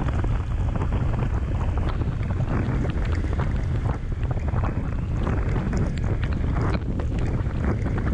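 Wind buffeting the microphone of a camera on a moving motorcycle: a steady low rumble with many short crackles.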